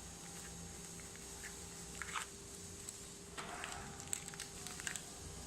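Faint scattered clicks and light taps of small parts being handled at a workbench, clustered about two seconds in and again toward the end, over a faint steady hum.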